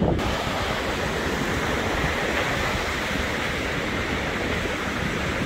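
Surf breaking and washing up a sandy beach: a steady rushing of waves.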